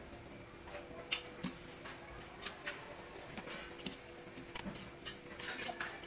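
Scattered light clicks and taps of a wire-mesh skimmer against a metal pan and plate as fried kala jamun are lifted out and set down, over a faint steady hum.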